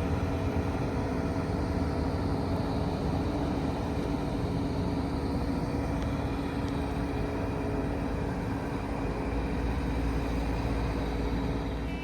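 Large diesel farm machine engine running steadily, an even rumble with a constant hum that holds the same pitch throughout.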